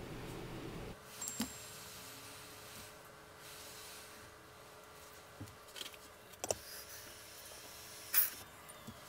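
Hot-air rework station blowing on a circuit board, a faint steady hiss that stops about a second in. Then a few light clicks and taps, the sharpest one near the end.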